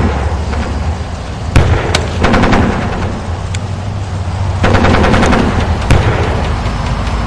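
Battlefield gunfire over a steady low rumble. Two sharp single rifle shots come about a second and a half in, the first being the loudest moment. A rapid machine-gun burst follows a little past the middle and stops about a second later.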